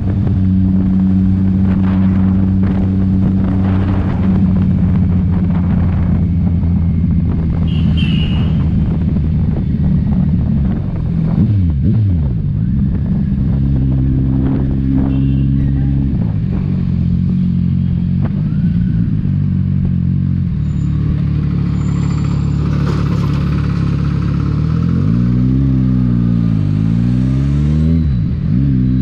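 Kawasaki Ninja 1000's inline-four engine and exhaust running under way, its note holding steady and stepping up and down in pitch with throttle and gear changes. About eleven seconds in the pitch falls steeply and climbs again, and near the end there are several quick revs up and down.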